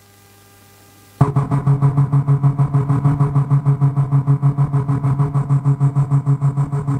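Yamaha DJX keyboard's synth sound starting suddenly about a second in: a loud, low pitched tone pulsing rapidly and evenly, about six times a second. Before it there is only a faint hum.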